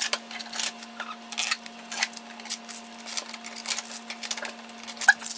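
Blue packing tape being peeled off a printer's plastic housing: a quick run of crackling rips and ticks.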